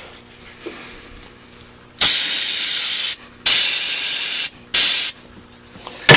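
Aerosol can of starting fluid sprayed onto a rag on the carburetor in three hissing bursts: two of about a second each, then a short one. The engine is being primed because it won't start from cold.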